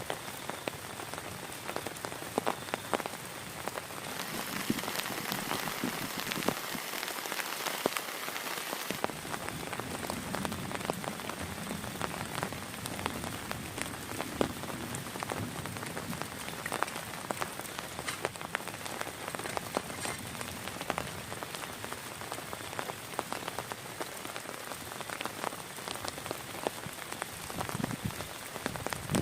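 Heavy rain falling steadily, with many sharp individual drop strikes on a surface. The hiss grows stronger for a few seconds, from about four to nine seconds in.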